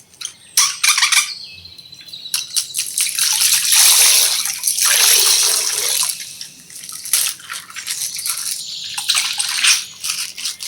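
Water-filled plastic bag being burst and emptied: water gushes and splashes out for a few seconds in the middle, with plastic crinkling and crackling around it.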